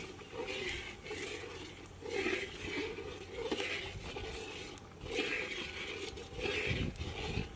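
Wood fire burning under a large iron kadai, with faint crackling, and a short unidentified sound repeating about once a second.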